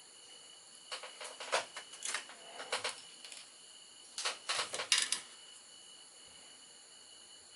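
Small plastic and resin model-kit parts handled at a workbench: light clicks and rattles in two short bursts, about a second in and again past four seconds. Underneath is a steady high-pitched hum of several tones.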